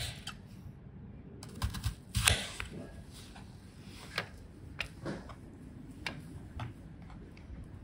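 Kitchen knife slicing rings off an onion on a cutting board, then onion slices set down on a stainless steel tray: a string of light clicks and taps at irregular intervals, the loudest a little over two seconds in.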